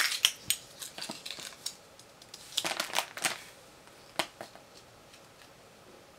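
Plastic gashapon capsule snapping open with a sharp click, then scattered small clicks and crinkling as the toy figure and its wrapping are handled.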